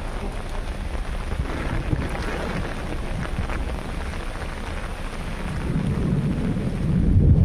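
Rain falling steadily, with a low rumble of thunder that swells about six seconds in and is loudest near the end.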